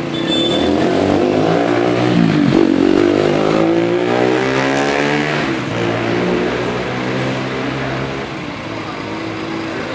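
Indonesian tour bus's multi-tone 'telolet' horn sounding as the bus passes, its pitches gliding down and up over the engine noise, loudest in the first half, with voices underneath.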